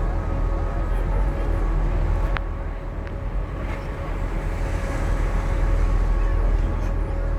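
Passenger ferry's engines droning steadily, heard on board, with a steady hum over a deep rumble. A brief click about two and a half seconds in.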